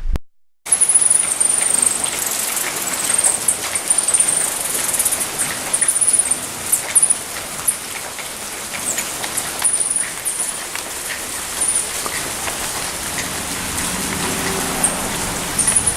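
Steady hiss of rain, with many short, high, thin bird squeaks repeating over it. The sound cuts in suddenly just under a second in.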